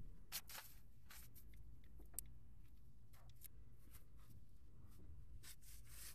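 Faint scattered rustles and light scrapes of a person moving and crawling about among attic joists, over a low steady hum.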